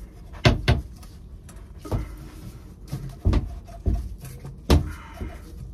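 Copper water pipe being shifted and worked by hand overhead, giving about six irregular sharp knocks and clunks, the loudest about half a second in and again near the end.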